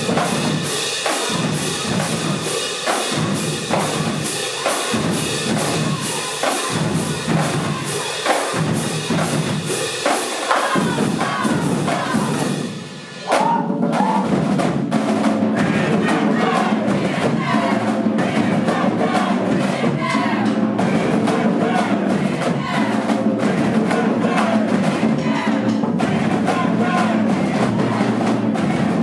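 High school marching band playing with its drumline: bass drums and snares keep a steady, regular beat. About thirteen seconds in the music breaks off briefly, then starts again with a fuller, denser sound.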